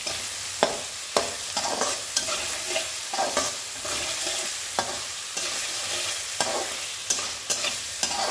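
Tomato pieces frying in an onion-garlic masala in a metal kadai while a metal spatula stirs them: a steady sizzle with sharp scrapes and knocks of the spatula on the pan about every half second.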